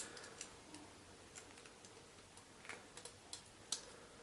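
Faint, scattered small metal clicks as a bobby pin shim is worked into an Umarex Perfecta HC200 handcuff between the ratchet and the cuff body, to push the ratchet down and free the jaw. The clicks come at uneven intervals, the loudest one near the end.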